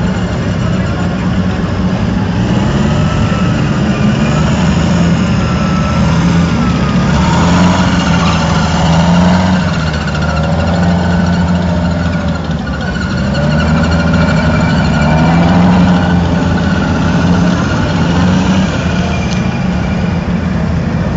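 Engines of a column of tracked military vehicles, self-propelled howitzers and articulated tracked carriers, driving past, the engine note rising and falling from one vehicle to the next.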